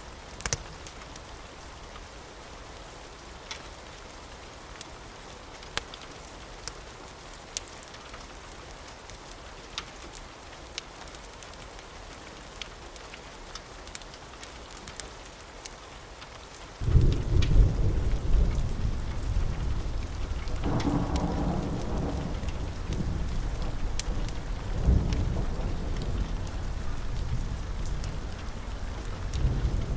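Steady rain with scattered sharp crackles from a fireplace. A little past halfway a loud, deep thunder rumble breaks in suddenly and keeps rolling, swelling and easing, to the end.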